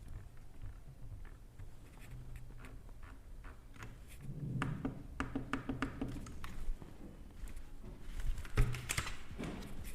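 Keys of a compact 65% mechanical keyboard being pressed in scattered clicks, with a quicker run of key presses about halfway through and a couple of heavier knocks near the end.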